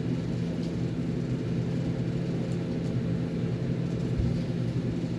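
A steady low hum with a faint noisy hiss above it, unchanging throughout.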